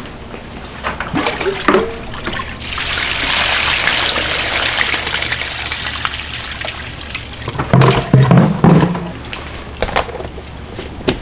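Water running or pouring steadily for several seconds, then stopping, followed by a few knocks and clatter.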